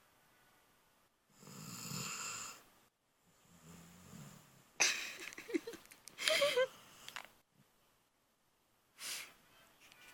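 Sleeping pit bull snoring in uneven breaths, several seconds apart. The two loudest, about halfway through, carry a squeaky, whistling wheeze.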